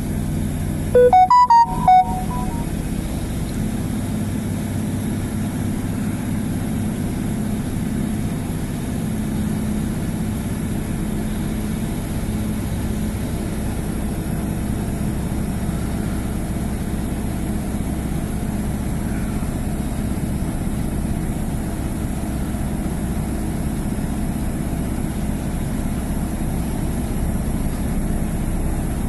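Class 150 Sprinter diesel multiple unit heard from inside the carriage: its underfloor Cummins diesel engine drones steadily at a low pitch as the train pulls away from the station. About a second in come two short, loud electronic beeps.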